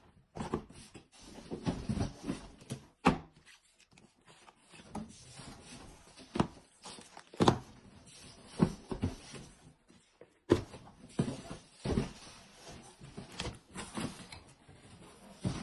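Small cardboard phone boxes being taken out of a large cardboard carton and set down on a table, giving irregular knocks and thuds mixed with the rustle of cardboard being handled.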